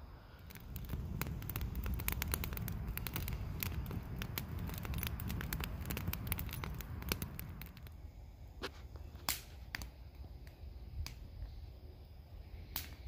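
Wood campfire crackling and popping over a low rumble: quick snapping for the first several seconds, then only a few sharp pops.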